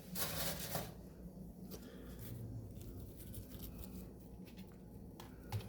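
Quiet handling noises as chicken fries are laid on a sandwich bun: a short rustle at the start, then faint light taps and clicks, with one sharper click near the end.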